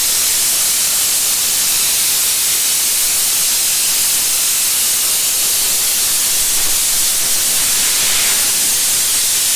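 Steady, loud hiss with most of its strength in the high range, even throughout with no rhythm or strokes.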